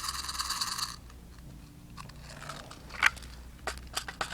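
A dense, rapid rattle that stops about a second in, then a handful of separate sharp clicks, from an airsoft pistol being handled.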